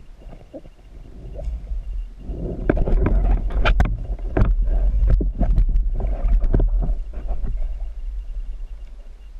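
Muffled underwater knocks, clicks and scraping as a speared fish and the spear line are grabbed and handled, heard through a camera housing over a steady low rumble of water. The knocking starts about two seconds in, is busiest in the middle and dies down near the end.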